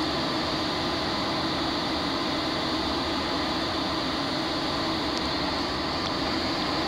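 Steady rush of air inside a glider's cockpit in flight on aerotow, with a faint low drone underneath that stays even throughout.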